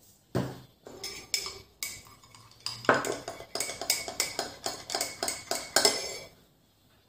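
A spoon stirring salad dressing in a small dish, clinking against its sides. It starts with a few spaced-out strokes, then clinks about four times a second, and stops about six seconds in.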